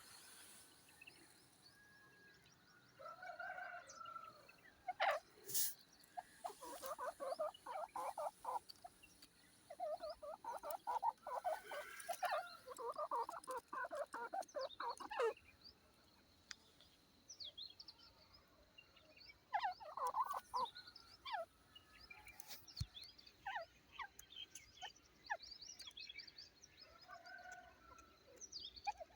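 Grey francolin calling in several bouts of rapid, chattering notes, with short pauses between bouts and a few higher chirps.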